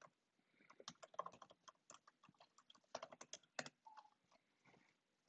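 Computer keyboard typing: a run of faint, irregular keystroke clicks.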